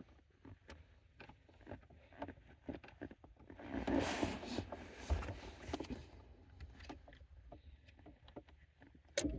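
Light metallic clicks and jiggling from a key and an Allen key working in a Ford ignition lock cylinder while the lock pin is pressed to release it, with a louder scraping rustle about four seconds in.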